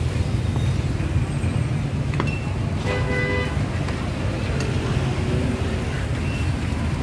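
Steady street traffic rumble with a short vehicle horn toot about three seconds in.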